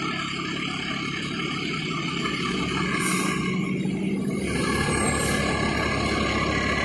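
Vehicle engine and road noise heard from inside the cab while driving, the low engine rumble getting stronger about halfway through.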